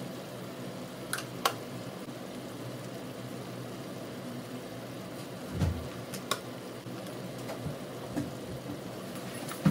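Onion masala cooking in a non-stick wok on the stove: a steady low simmer, with a few sharp clicks and a dull knock about halfway through.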